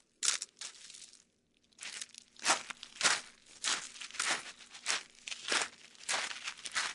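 Footsteps crunching on a dry, loose surface. A couple of steps, a pause of about a second, then a steady walking pace of roughly two steps a second.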